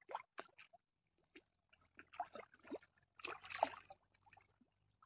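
Faint, irregular splashing and sloshing of water, in short uneven bursts.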